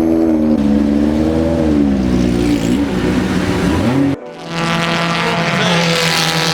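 Race car engines running on a track: an engine note drops in pitch, then climbs again as it accelerates. About four seconds in, the sound breaks off abruptly and a steadier engine note takes over.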